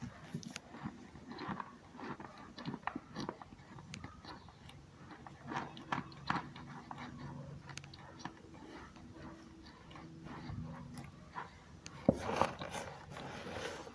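Close-up biting and chewing of hard chunks of cornstarch: irregular crisp crunches with a squeaky edge, the loudest bite coming about twelve seconds in.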